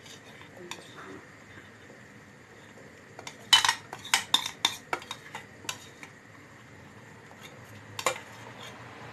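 Metal spoon knocking and scraping against a cooking pot and bowl, a quick run of sharp clinks a few seconds in and one more near the end.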